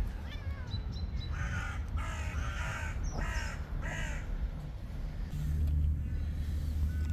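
A crow cawing about five times in quick succession, from about a second in to about four seconds in, over a steady low rumble that grows louder near the end.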